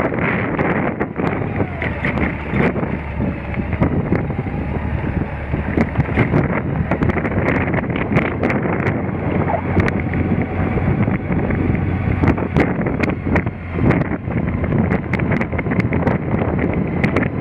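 Wind rushing over the microphone of a camera on a moving motorcycle, with the engine's low steady hum beneath. Scattered sharp clicks and knocks come through all along.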